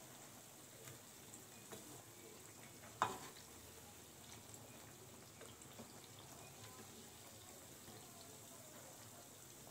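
Onion fritters (piyaji) frying in shallow oil with a faint, steady sizzle while they are turned with a slotted metal spatula; a few light ticks early on and one sharp clink of the spatula against the pan about three seconds in.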